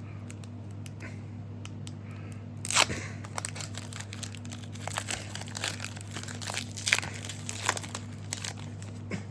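A foil trading-card booster pack being torn open and crinkled, with a sharp rip about three seconds in followed by a run of crackles and clicks as the wrapper and cards are handled.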